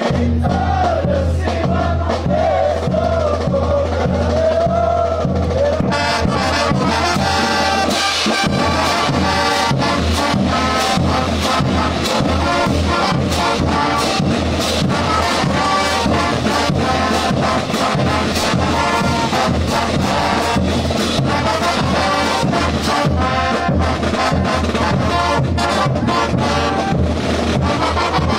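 Morenada brass band playing: bass drums and cymbals keep a steady march beat with shouting voices over it at first. The full brass section, with sousaphones, trumpets and trombones, comes in about six seconds in.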